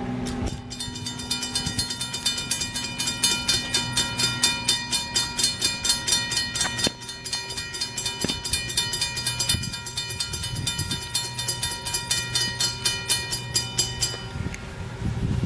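Railroad crossing warning bell ringing rapidly, about three strikes a second, then cutting off suddenly near the end, over the steady low hum of a diesel locomotive.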